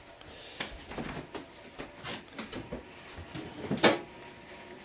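Kitchen handling noise: a string of light knocks and clicks, with one sharper, louder knock about four seconds in, like a cupboard, drawer or utensils being handled.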